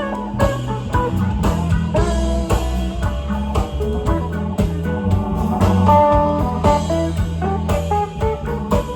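Live blues-rock jam band playing an instrumental passage: electric guitars with a melodic lead line of single notes over a steady bass guitar and drum kit groove.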